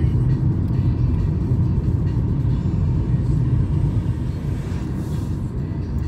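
Steady low rumble of a car driving, road and engine noise, with music playing along with it.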